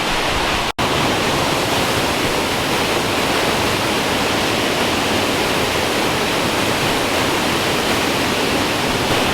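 Powerful waterfall in full flow, heard from close below: a loud, steady rush of falling water, broken by a split-second gap a little under a second in.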